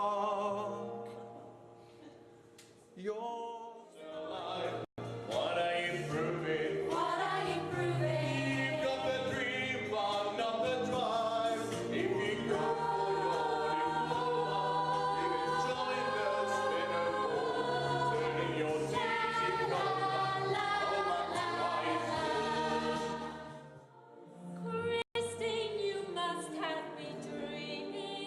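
Vocal ensemble singing in close harmony, several voices holding sustained chords over steady low notes, with two short breaks between phrases and two abrupt momentary drop-outs in the sound.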